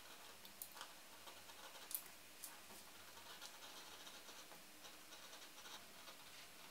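Utility knife blade cutting through a paper pattern and the leather beneath it: faint scratchy strokes with scattered small clicks, one sharper click about two seconds in.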